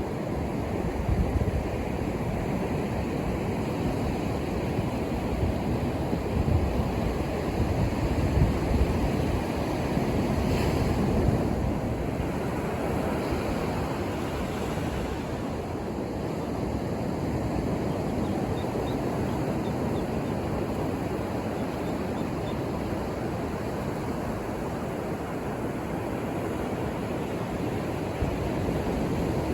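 Ocean surf breaking steadily on a beach, a continuous wash of waves that swells and eases, with some wind on the microphone.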